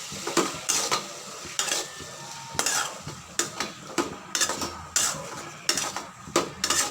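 Chicken with ginger-garlic paste frying in oil, stirred in the pan with a spoon: the spoon scrapes and knocks against the pan about twice a second over a steady sizzle.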